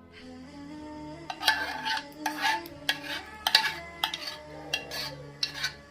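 Kitchen utensil clinking and scraping against a bowl, with irregular strikes about twice a second starting after about a second, while custard is spooned in. Soft background music plays underneath.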